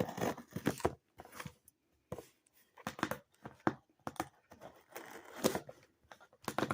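Packaging being torn open and handled by hand: a run of irregular tearing, scraping and crinkling noises with short clicks.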